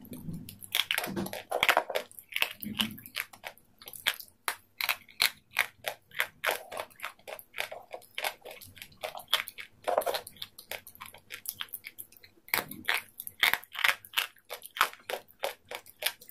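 Close-up crunchy chewing of raw salad greens: rapid wet crunches and crackles, several a second, in runs with two short pauses.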